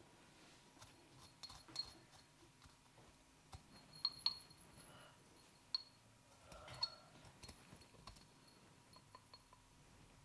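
Sparse, irregular sharp clicks and light clinks, a few ringing briefly, with the loudest pair about four seconds in.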